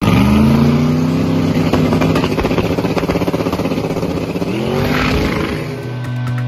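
A car engine revving hard: its pitch climbs at the start, holds high with a pulsing note, then drops and climbs again about four and a half seconds in. Music comes in near the end.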